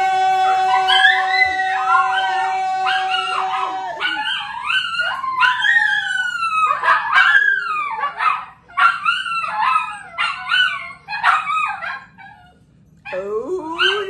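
A dog howling: one long steady howl, then a run of wavering howls that slide up and down in pitch with short breaks, and a fresh rising howl near the end.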